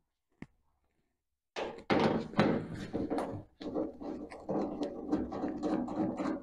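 Work gloves being pulled on and worked over the hands: a dense rustling and crinkling of glove material with many small clicks, starting about a second and a half in after a single light tick.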